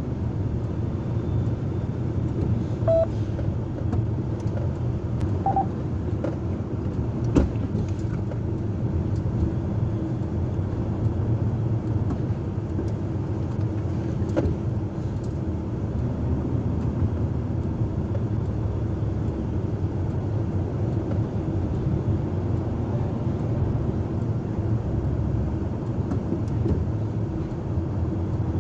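A heavy diesel engine running steadily with a low rumble, with a few light knocks and two short high tones about three and five and a half seconds in.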